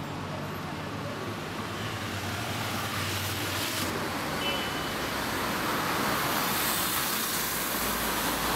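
City street traffic: a steady hum of cars and engines on the road, swelling slightly in the second half as vehicles pass.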